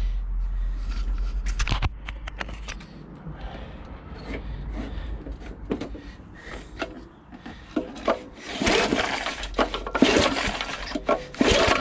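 Tecumseh lawnmower engine being pull-started on its newly replaced recoil starter: scattered clicks and scrapes, then several loud pulls of the starter cord late on, and the engine catches and starts running right at the end.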